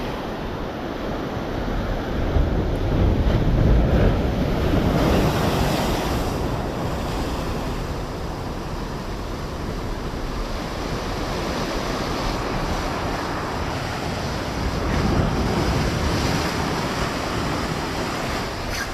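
Ocean surf breaking and washing against the rocks of a jetty, in steady rough swell, surging louder around three seconds in and again about fifteen seconds in, with wind buffeting the microphone.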